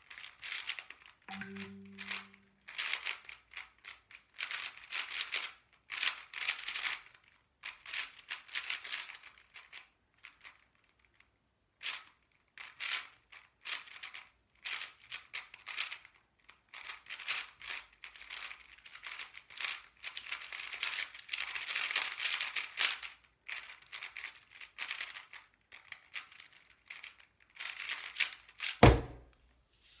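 Angstrom Aosu GTS2 M 4x4 speedcube turned fast in runs of clicking, clacking layer turns, broken by brief pauses. Near the end comes a single loud thud as the solved cube is set down and the timer is stopped.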